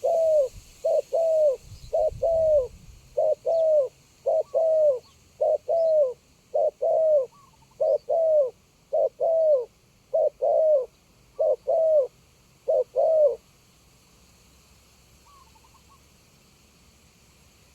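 Spotted dove cooing in a steady series of paired low, falling notes, about one pair a second. It stops about 13 seconds in. Faint chirps of small birds sound in the background.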